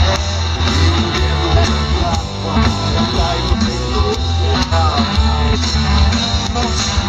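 Live rock band playing an instrumental passage: guitar over a loud, heavy bass with a steady drum beat.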